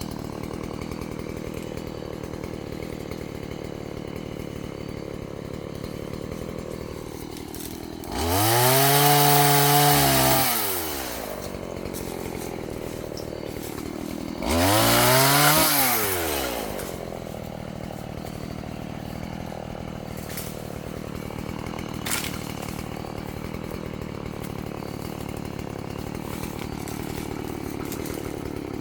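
Chainsaw idling steadily, revved up twice: about eight seconds in it climbs to a high, held pitch for a couple of seconds and drops back to idle, and again a few seconds later for about two seconds.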